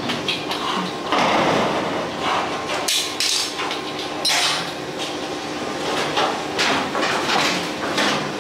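Hammering during house building: irregular hammer blows and knocks, roughly one a second, some with a short ring.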